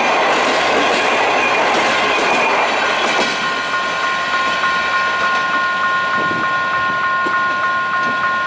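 Passenger train coaches rolling past at speed with loud wheel and rail noise. About three seconds in the sound changes abruptly to the receding train with a steady high tone and a regular beep about three times a second over it, an electronic warning signal.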